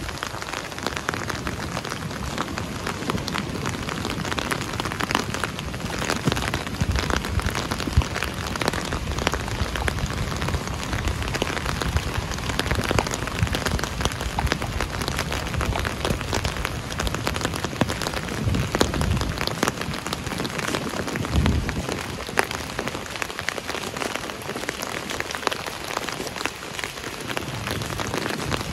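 Steady rain falling close by, a dense patter of individual drops striking a surface, with a few low rumbling swells along the way.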